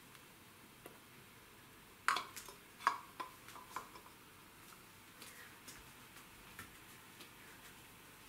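Light clinks and knocks of kitchenware being handled: a quick run of about six about two seconds in, then a few softer ticks.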